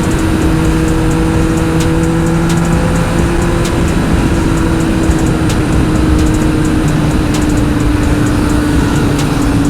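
Yamaha XSR900's inline-three engine running through a full Akrapovic twin-pipe exhaust at a steady cruise, its note holding almost level and easing slightly lower near the end, under a steady rush of wind noise.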